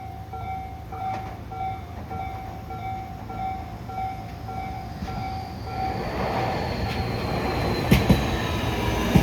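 A level crossing warning bell rings in steady repeated dings, about two a second. From about six seconds in, the running noise of a Tobu 60000 series electric train grows louder over it, with a high whine slowly falling in pitch and a few sharp wheel clicks near the end.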